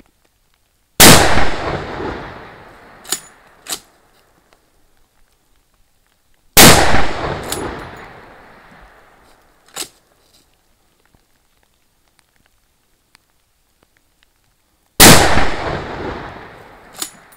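Three loud shots from a Blaser Tactical 2 rifle in .338 Lapua Magnum, about five and a half and then eight and a half seconds apart, each with a long echoing tail that dies away over about two seconds. A couple of short sharp clicks follow each shot.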